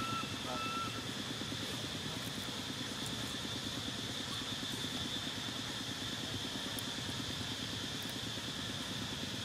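An engine running steadily at idle with a fast even pulse, under a steady high-pitched drone. A few short rising chirps sound at the start.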